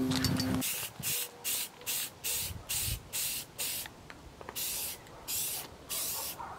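Aerosol spray can of bonding primer sprayed in about a dozen short hissing bursts, each under half a second, with brief pauses between them. A steady low hum cuts off just after the start.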